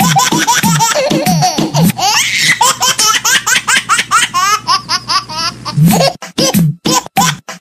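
High-pitched laughter in quick, rapid ha-ha bursts, over background pop music; the music turns into a chopped, stuttering beat near the end.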